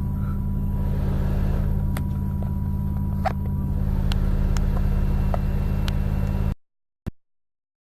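Bus engine running steadily, heard from inside the bus as a low drone with a few faint ticks. It cuts off abruptly about six and a half seconds in, followed by a single short click.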